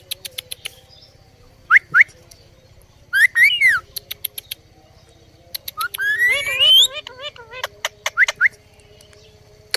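Indian ringneck parrot whistling and chirping, with no words. There are two quick rising whistles about two seconds in, a cluster of warbling whistles at three to four seconds, a long rising whistle about six seconds in, and two short whistles near the end. Sharp clicks are scattered among the calls.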